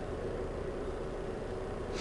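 Steady background hum with a faint constant tone in it and no distinct handling sounds. A brief soft hiss comes right at the end.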